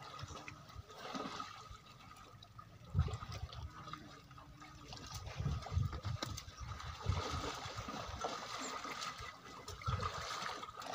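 Water sloshing and splashing as water buffaloes wade and shift about in shallow muddy water, with several stronger surges of splashing.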